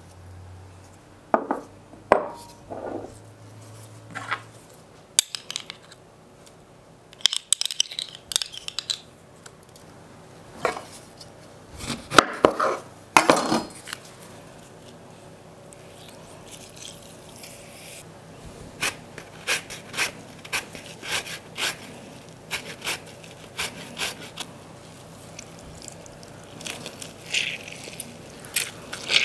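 Kitchen prep handling sounds: irregular knocks, clicks and scrapes of hands, utensils and ingredients against a wooden table and a glass baking dish, as salt is sprinkled and lemons are handled and squeezed over cubed raw potatoes. The second half has a run of short, evenly spaced ticks.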